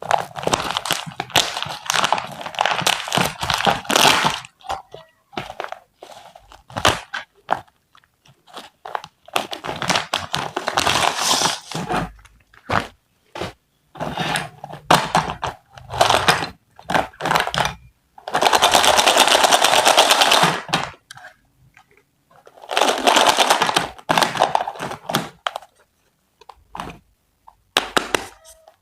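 Close-up crunching and crinkling handling noise from a toy kitchen set and its packaging being unboxed: irregular scrapes and crackles with short pauses, including two longer crunchy stretches of about two seconds each in the second half.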